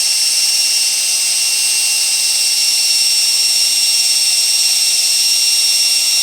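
Power tool spinning a soft cotton buffing pad against a painted aluminum wheel, running at a steady high speed with an even whine.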